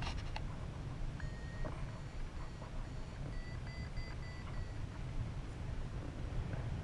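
Paragliding variometer beeping: one held tone about a second in, then a run of short beeps stepping slightly higher in pitch around the middle, the audio signal of climbing in lift. Under it, a steady low rumble of wind on the microphone.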